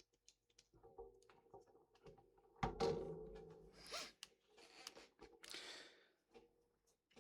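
Faint clicks and knocks of LEGO plastic pieces being handled and pressed onto a model, with one louder thunk about two and a half seconds in and a couple of brief rustles.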